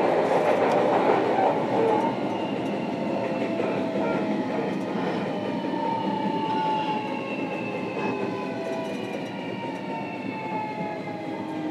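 JR Kyushu 305 series EMU's Toshiba permanent-magnet synchronous traction motors and inverter, heard from inside the motor car over the rumble of the wheels on the rail. From about five seconds in, several whining tones fall steadily in pitch as the train slows, typical of the drive braking for the next station.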